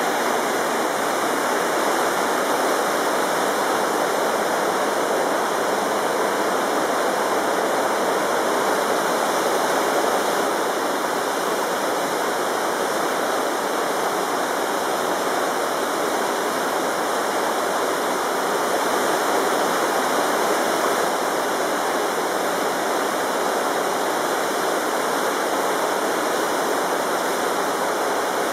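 River water rushing over rocks and riffles: a steady, even rush of moving water with no breaks.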